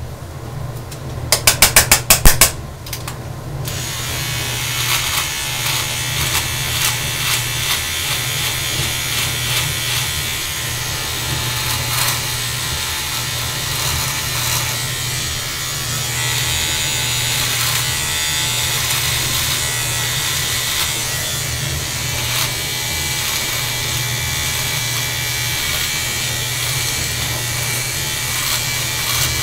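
Electric beard trimmer buzzing steadily as it cuts through beard hair on the face. A quick run of loud clicks comes about a second and a half in.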